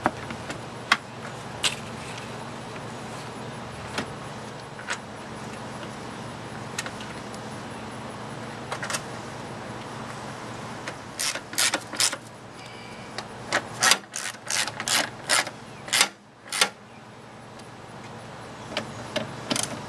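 Sharp plastic clicks and snaps from the upper fan shroud of a pickup's radiator being worked into place by hand: a few single clicks, then a run of about a dozen at roughly three a second in the second half, over a steady low hum.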